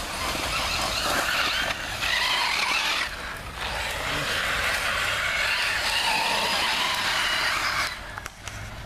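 A radio-controlled car driving hard on a loose gravel path, its tyres spinning and skidding and spraying grit, in a loud rasping hiss that dips twice and falls away near the end.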